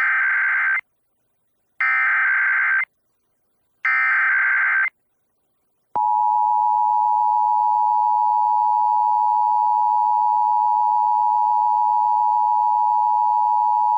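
Emergency Alert System SAME header played over FM radio: three one-second bursts of warbling digital data tones about two seconds apart, then the EAS two-tone attention signal (853 and 960 Hz together) starts about six seconds in and holds steady.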